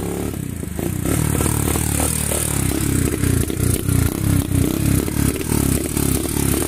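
Single-cylinder motorcycle engine running close by, getting louder about a second in as the bike comes up, with an even pulsing beat.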